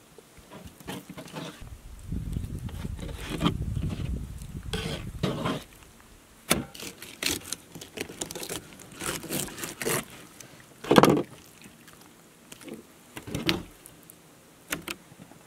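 Kershaw fillet knife slicing through a pink salmon and scraping along the cutting board, with irregular taps and knocks as the fish is handled; one sharper knock comes about two-thirds of the way through.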